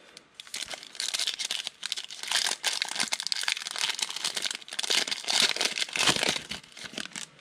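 Foil wrapper of a 2018 Panini Rookies and Stars football card pack crinkling and crackling as it is handled and torn open. It starts about half a second in and stops just before the end.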